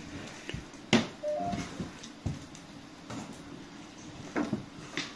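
Scattered knocks and clicks, the loudest about a second in and two more near the end, with a brief two-note tone just after the first knock.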